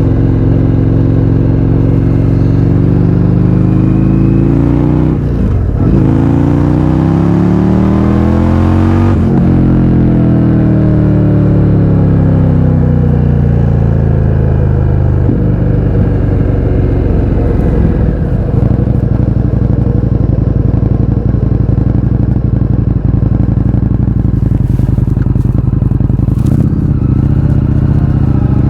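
Indian FTR 1200's V-twin engine through an Akrapovič exhaust with its baffles removed, under way: the revs climb, drop briefly at a gear change about five seconds in, climb again to a peak near nine seconds, then fall away as the throttle closes. The engine holds a fairly steady pitch for a while and starts to rev up again near the end.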